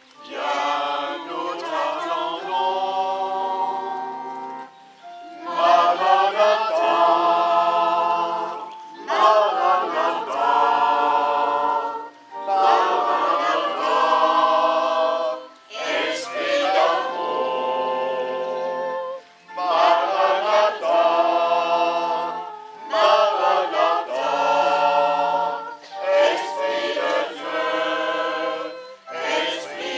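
Congregation singing a hymn together, in phrases of a few seconds with short breaks between them, accompanied by an electronic keyboard.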